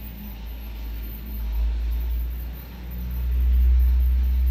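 Toy train running on a plastic track loop: a deep rumble that swells about a second and a half in and again, louder, near the end as the train comes round.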